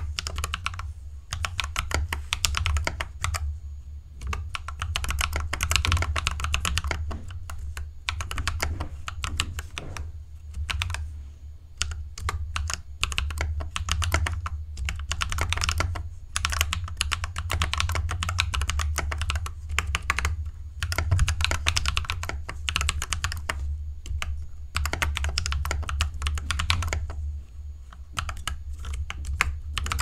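Fast typing on a Falcon Elite mechanical keyboard fitted with Akko Ocean Blue switches and Izakaya keycaps: a dense run of key clacks in bursts, with brief pauses about four and eleven seconds in. A steady low hum sits underneath.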